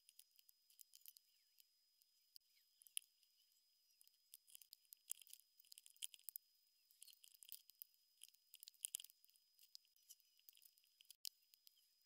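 Faint, scattered clicks and small taps of plastic LEGO bricks being handled and pressed together by gloved hands, with a faint steady high tone underneath.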